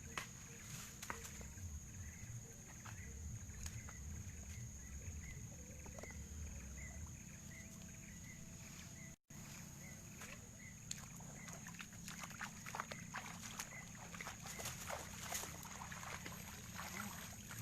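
Outdoor ambience: a steady high insect drone with a short chirping call repeated about three times a second, over a low rumble. Scattered clicks and knocks thicken in the second half, with a brief break about nine seconds in.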